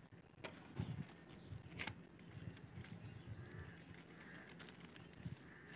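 Faint handling sounds: a few sharp clicks and crinkles in the first two seconds as emptied plastic cream sachets are handled and set down on a wooden table, over quiet outdoor background.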